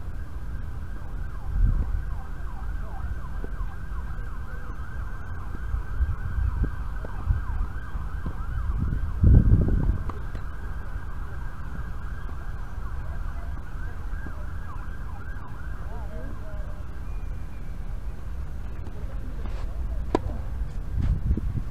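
Emergency-vehicle siren sounding with quick rising and falling sweeps, fading out about two thirds of the way through. A few low thumps sit underneath, the loudest about nine seconds in.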